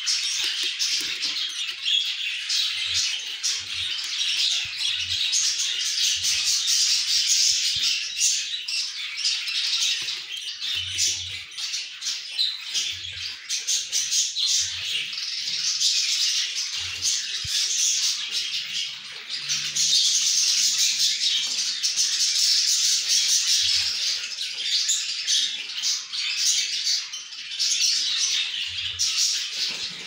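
Budgerigars calling: near-continuous raspy chirping and squawking, made of rapid short notes, with a few brief dips.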